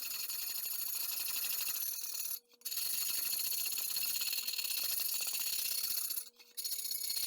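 Crusted buildup being scraped and abraded off a rusty cast iron pan: a steady, rapid rasping scrape that stops briefly twice.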